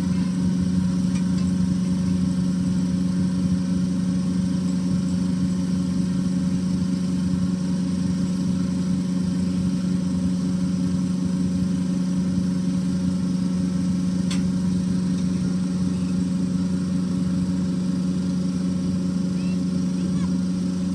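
Boat engine running steadily at low revs, a constant low drone.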